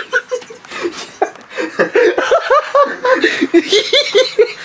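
Laughter: a young man laughing in quick, repeated short bursts that arch up and down in pitch.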